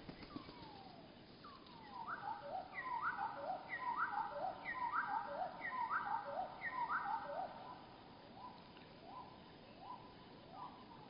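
Bird calls slowed to a third of normal speed, so they sound low and drawn out. A fast run of repeated call notes overlaps loudly in the middle, then thins to single, quieter rising notes about once a second.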